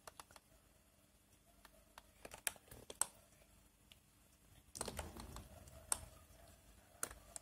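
Faint, scattered clicks and taps from a computer keyboard and mouse, irregular and a few at a time.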